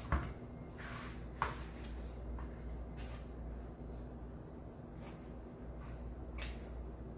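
Metallic plastic deco mesh being handled and cut with scissors: a handful of short, crisp rustles and snips, the loudest near the start and about a second and a half in, over a steady low hum.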